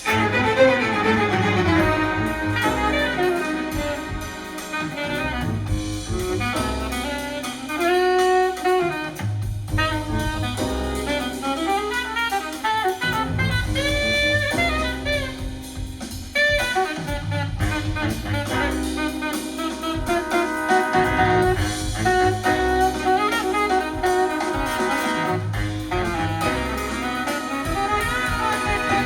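Jazz with saxophone and brass over a bass line, played back through KEF Q Concerto speakers driven by a Yamaha R-N800A receiver.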